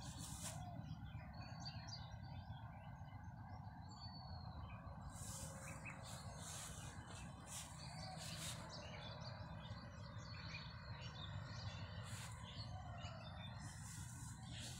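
Faint outdoor ambience: scattered small bird chirps and short calls over a steady low rumble, with a few brief hissy swishes.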